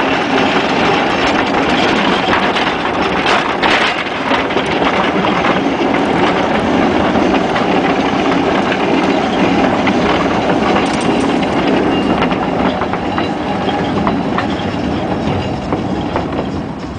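1926 Whitcomb 4-ton storage battery mine locomotive rolling along narrow-gauge track, heard from on board: a steady, loud rumble of steel wheels on the rails with rattling and clacking. The noise eases off slightly near the end.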